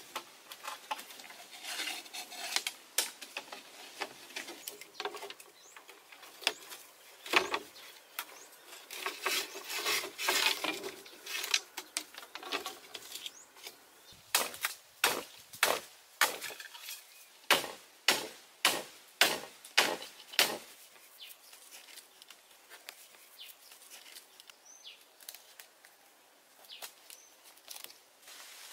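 Sickle-knife blade chopping bamboo: scattered knocks and rattling of bamboo slats, then a steady run of about ten hard chopping strokes, a little under two a second, in the middle, after which only faint ticks remain.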